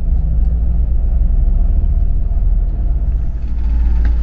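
Coach bus engine and road noise heard inside the cabin: a steady low rumble, with the engine still running when the bus stands at its stop near the end.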